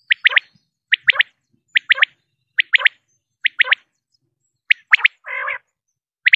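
Male common quail (batair) calling its three-note 'wet-my-lips' call, each sharp triple repeated about once a second, with a short pause a little before the middle. A half-second rough, noisy burst comes just after one call about five seconds in.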